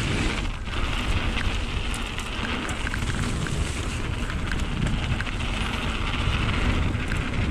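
Mountain bike riding down a wet trail: steady noise of tyres on wet dirt and wind on the microphone, with scattered clicks and rattles from the bike.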